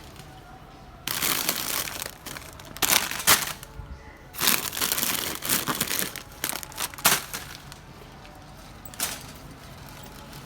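Plastic packaging crinkling and rustling as it is handled, in bursts for about six seconds with a few sharper cracks.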